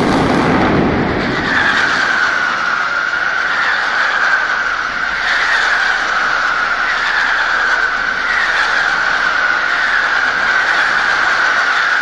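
Mascletà firecrackers going off in a dense, unbroken barrage, heavy and rumbling in the first second, with a high wavering whistle running through the din.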